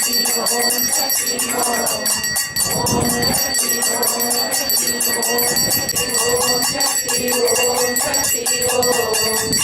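A small brass puja hand bell rung rapidly and without pause, with voices of the devotees faintly singing underneath.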